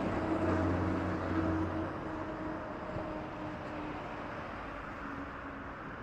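A motor vehicle passing by, its engine hum strong in the first couple of seconds and then fading away over a wash of street noise.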